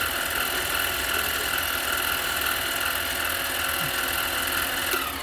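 Harbor Freight mini lathe running with a steady motor whine while machining a hub-centric ring. Near the end there is a click, and the motor begins to wind down, its whine falling in pitch.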